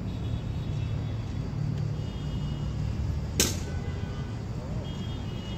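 Steady low hum of road traffic, with one sharp clack about three and a half seconds in, from the guards' drill.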